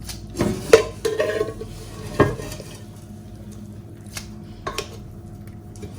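A utensil stirring spaghetti into a cream sauce in a pot, scraping and knocking against the pot. There are several sharp clinks in the first couple of seconds, then only a few light taps.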